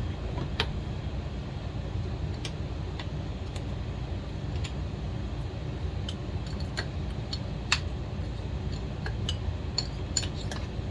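Irregular light metallic clicks and clinks of hand tools working on a chainsaw's cylinder and its nuts, the sharpest about three-quarters of the way through, over a steady low background hum.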